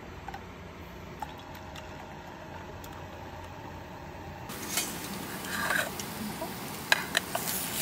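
Hot water pouring quietly into an enamel mug of coffee. About four and a half seconds in, waffles sizzle in a hot frying pan, with tongs clicking sharply against the pan a few times.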